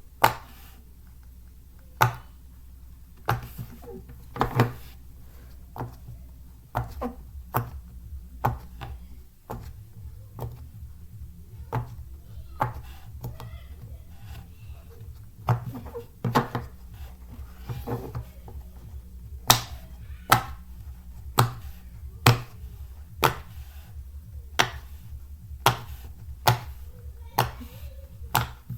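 Silicone pop-it fidget toy bubbles being pressed, a string of sharp pops at irregular intervals, about one a second.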